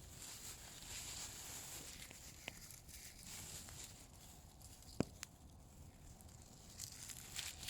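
Small outdoor bonfire burning with a faint hiss and a few sharp crackling pops, the loudest about five seconds in.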